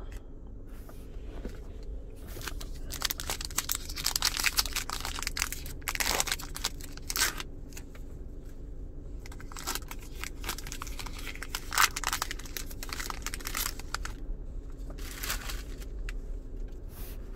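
Plastic-foil wrapper of an NBA Hoops basketball trading card pack crinkling and tearing as it is opened, in irregular bursts of rustling with short pauses.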